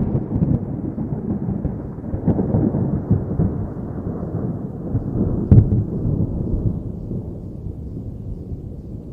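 Thunder rumbling, with a sharp crack about five and a half seconds in, then slowly dying away to a low rumble.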